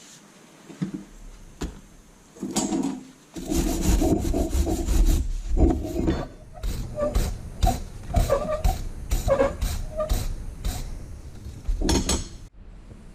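Irregular rubbing and scraping strokes with clicks and short squeaks, from hand work on metal parts. They start about two and a half seconds in, run on busily for several seconds and end with a last burst near the end.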